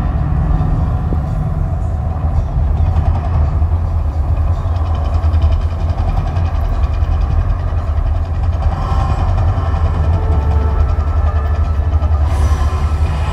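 Deep, steady rumble from the Mirage volcano attraction's show sound, running between fireball eruptions.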